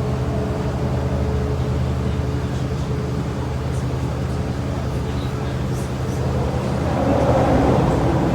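Boat engine running at a steady drone under way, with a noisier rush swelling near the end.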